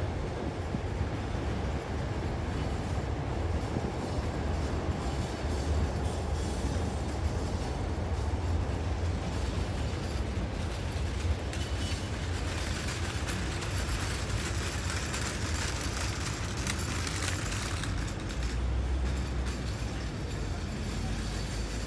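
Continuous low rumble of outdoor background noise, with a brighter hiss joining it for several seconds past the middle.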